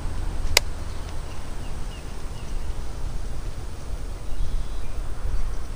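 Wind buffeting the microphone as a steady low rumble. There is a single sharp click about half a second in, and a few faint high chirps follow soon after.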